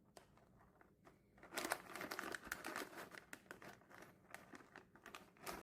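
Plastic packaging crinkling as it is handled, with many small clicks. It is faint at first and gets louder and busier about a second and a half in, then cuts off abruptly.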